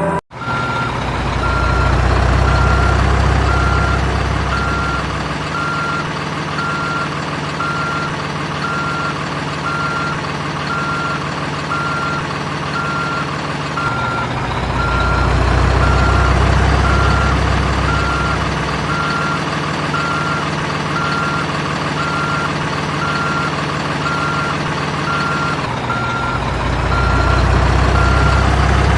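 Simulated heavy-vehicle sound effects from a toy RC vehicle: a steady repeating reversing beep at one pitch over a low engine drone that swells louder three times and cuts back abruptly, like a looped recording.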